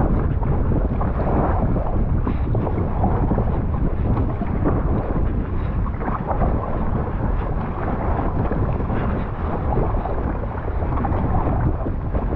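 Strong wind rumbling on the microphone, with water splashing irregularly around an inflatable kayak being paddled into the wind.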